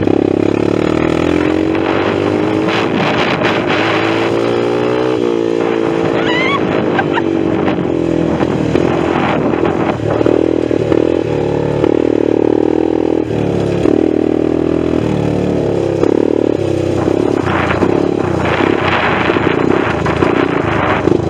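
ATV engine running under way, its pitch rising and falling as the throttle is opened and eased off, with occasional clatter as the machine bounces over rough ground.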